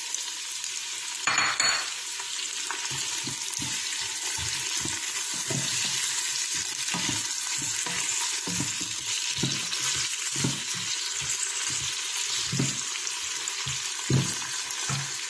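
Onions, garlic and chopped tomatoes sizzling in hot oil in the inner pot of an electric pressure cooker, with a spatula scraping and stirring through them in short repeated strokes. A louder burst of sizzling comes about a second and a half in as the tomatoes drop into the oil.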